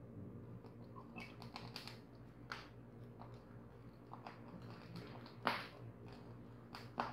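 Faint scattered ticks and crackles of cooking oil just poured into a hot iron kadai, over a steady low hum, with a sharper click about five and a half seconds in.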